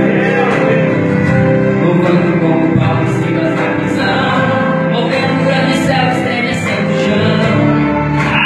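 Gospel-style Christian music: a group of voices singing together over sustained instrumental chords, with a light steady beat.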